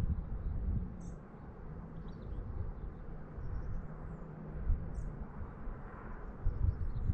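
Wind buffeting the microphone in uneven gusts, with small birds chirping faintly now and then.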